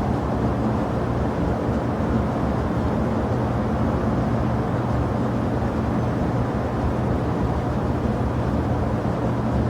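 Jet airliner engines running with a steady, unchanging rumble and hum.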